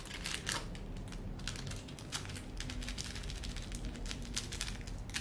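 Small plastic seasoning packet of dried seafood flakes crinkling and being tapped as its contents are shaken out over a pot, with quick, irregular clicks and crackles throughout.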